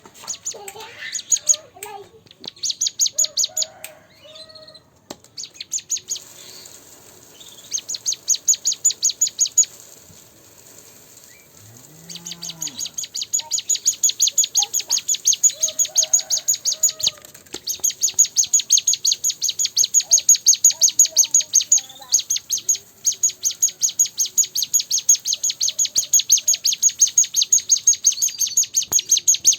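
A cigun (ciblek gunung, a prinia) singing in long runs of rapid, repeated high chip notes, with a short break about ten seconds in before it resumes.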